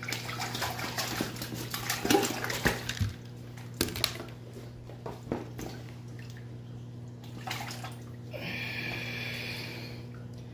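Wet splashing and rustling as hands rummage in an insulated cooler bag and lift out a striped bass, with sharp clicks and knocks in the first few seconds and a hissing stretch near the end. A steady low hum runs underneath.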